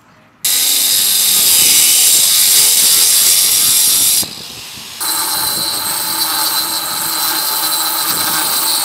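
A loud power tool running, in two long stretches with a brief drop a little after four seconds in.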